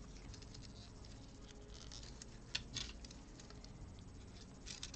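Faint, scattered clicking and light rattling of small plastic Lego pieces being sifted through by hand, with a few sharper clicks about halfway through and near the end.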